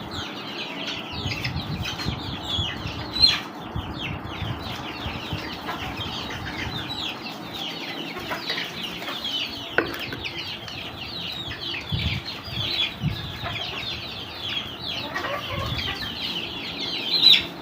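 Backyard chickens, chicks and hens, calling without pause: a constant stream of short, high, falling peeps over low clucking, with a few sharp knocks.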